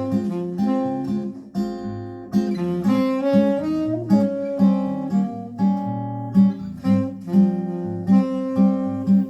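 Acoustic guitar music, a steady run of plucked notes over a low bass line, played through a Philips 22AH386 amplifier and 22AH486 hi-fi speakers with the tone controls flat and loudness off.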